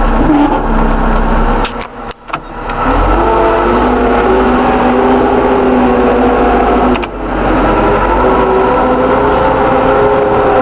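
Caterpillar IT914 loader's diesel engine running, its pitch rising and falling as the engine speed changes. The sound drops away briefly twice, about two and seven seconds in.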